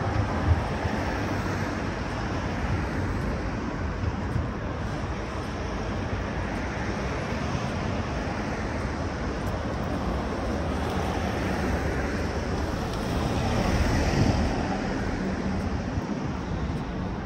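Steady city street traffic noise from passing vehicles. A louder vehicle passes about fourteen seconds in.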